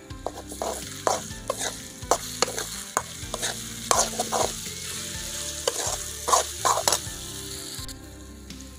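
A steel spoon stirs and scrapes potato wedges around a metal kadai as they fry in oil with a steady sizzle, working in ginger-garlic paste. The scraping strokes come irregularly and stop about a second before the end, leaving the sizzle.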